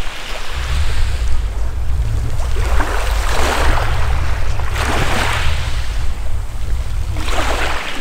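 Small waves washing up onto a pebble beach and drawing back, three swells of hiss a couple of seconds apart, over a steady low rumble of wind on the microphone.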